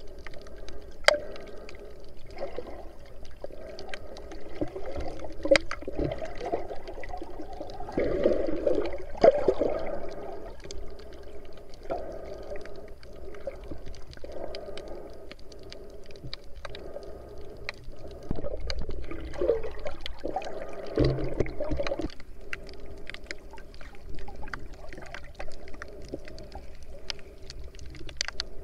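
Underwater sound picked up by an action camera in its waterproof housing: a muffled, wavering wash of water movement with scattered sharp clicks, louder in a few swells.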